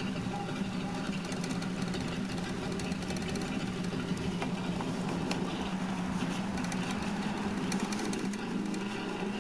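Cloth wrapped over a pine pencil scrubbing thick chrome-polish paste on chrome, making an irregular scratchy rubbing, under a steady low motor hum.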